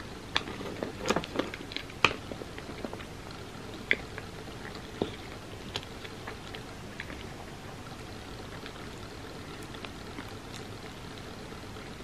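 Eating sounds of soft chocolate banana nicecream: mouth clicks, with a metal spoon clicking and scraping in the dish. A cluster of sharp clicks comes in the first two seconds, then sparser ones over a steady hiss.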